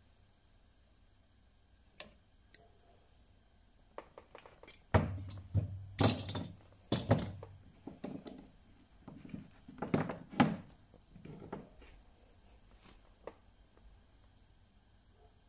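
Metal knocks and clacks from handling a lead-ball casting mould and locking pliers while freeing a fresh casting of lead balls: a few light clicks, then a run of loud knocks in the middle.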